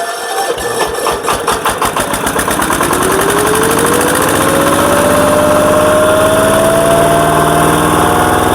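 Single-cylinder diesel engine of a walk-behind power tiller running just after starting, its separate firing beats quickening as it picks up speed. A whine rises steadily in pitch through the second half and then levels off.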